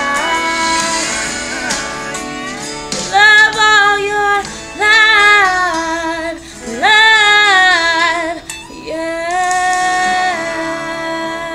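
A woman singing long held notes with vibrato over a karaoke backing track with guitar.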